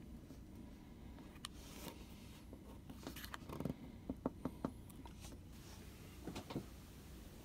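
Faint steady low hum with scattered light clicks and knocks, including a quick run of four about four seconds in and two more near the end.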